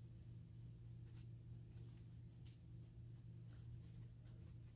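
Faint scratchy strokes of a small paintbrush dragging paint along a wooden dowel rod, over a steady low hum.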